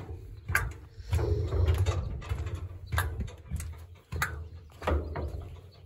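Footsteps on a ribbed aluminium gangway ramp: irregular dull thuds with a few sharp metallic clanks.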